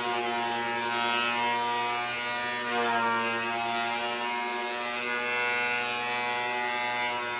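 Benchtop thickness planer running with a steady whine, its motor under load as the cutterhead shaves a 2x6 board feeding through.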